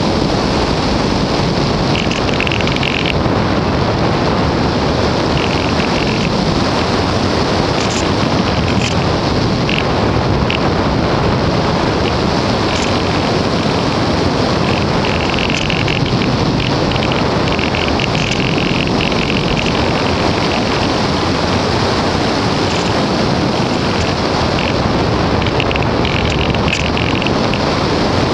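Steady, loud rush of airflow over the microphone of a camera riding on a Multiplex Easy Glider RC model in flight, with brief patches of high buzzing every few seconds.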